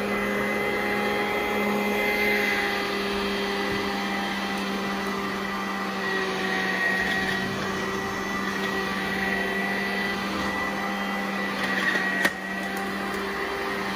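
Vacuum cleaner running steadily over carpet, pre-vacuuming before a carpet cleaning, with a steady motor whine over the rush of air. A single sharp knock comes near the end.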